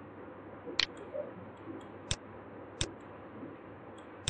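Computer mouse buttons clicking: about four sharp, single clicks spaced irregularly, over a faint steady hiss.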